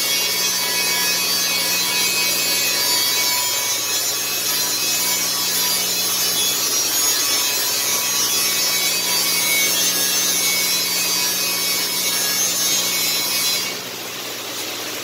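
CNC wire EDM machine cutting a metal block: a steady hiss of dielectric water spraying from the wire-guide nozzle, over a low steady hum. Near the end the hiss drops off and the sound goes quieter.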